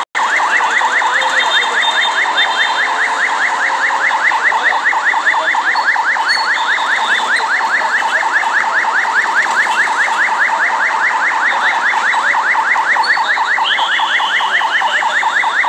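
Electronic alarm sounding a fast, evenly repeating pitch sweep, about five or six cycles a second, without a break.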